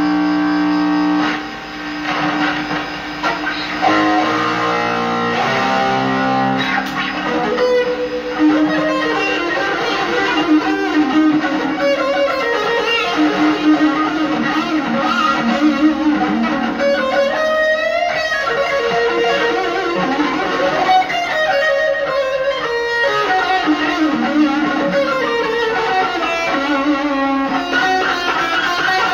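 Stratocaster-style electric guitar played through an overdrive pedal and small amp: fast improvised scale runs and lead lines with held notes, and a pitch bend about halfway through.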